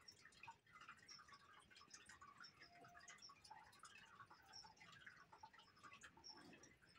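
Near silence: quiet room tone with faint, scattered short high chirps and ticks.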